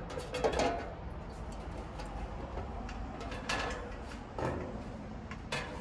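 Metal wire fan grille of an outdoor AC condenser clinking and rattling against the unit's top as it is set in place and its bolts are lined up by hand: a handful of separate clinks and short scrapes.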